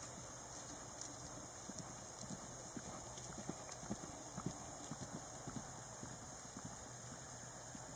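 Hoofbeats of a ridden horse cantering on grass: soft thuds, loudest in the middle as the horse passes close, then fading as it moves away.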